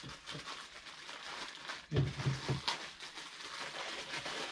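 Plastic bag rustling and crinkling as a baby garment is pulled out of it, with a few short, low vocal murmurs about two seconds in.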